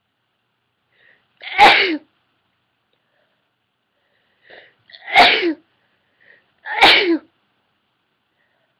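A woman sneezes three times, each sneeze preceded by a short faint in-breath. The second and third sneezes come close together, about a second and a half apart. The sneezes are brought on by sniffing pepper.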